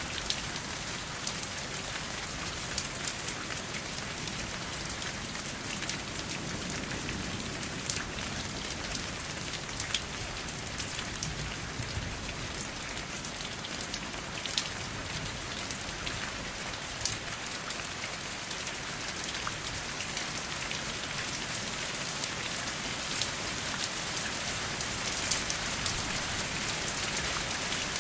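Steady rain falling, a dense hiss with individual drops ticking sharply here and there, and no thunder. It grows a little louder over the last few seconds.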